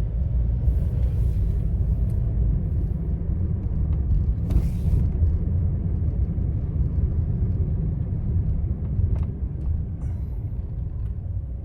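Car being driven, a steady low road and engine rumble heard inside the cabin, with a brief hiss about four and a half seconds in.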